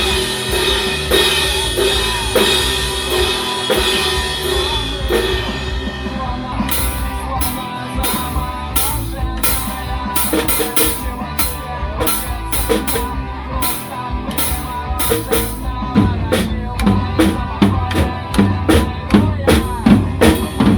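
A pop song with a drum kit being played along to it. From about six seconds in, evenly spaced drum hits stand out over the song, and they get busier and louder near the end.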